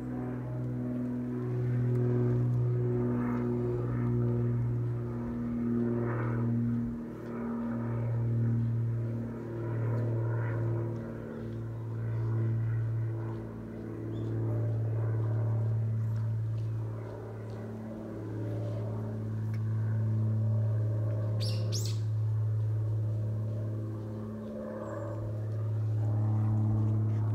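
Brown tabby cat purring close to the microphone, a steady rumble that swells and eases with each breath about every two seconds: a contented cat enjoying being petted. A brief sharp click comes about three-quarters of the way through.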